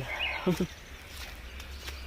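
Footsteps on a forest trail over a low outdoor hush, with a short bird chirp and a brief voice sound near the start.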